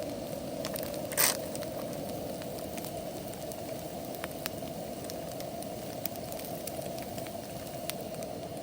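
A pan of eggs and turkey sausage cooking over a fire: a steady low rush with scattered sharp crackles, and one louder, longer burst about a second in.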